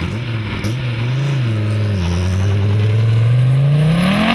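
Car engine running at a fairly steady pitch, then revving up sharply near the end as it accelerates.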